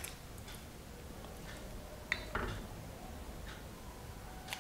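Metal spoon scraping and tapping against a steel strainer while pressing boiled tamarind through it for pulp: scattered light clicks, the loudest a pair about two seconds in.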